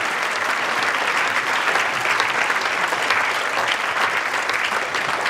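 Crowd applause: many people clapping at once, steady and dense, with individual claps standing out here and there.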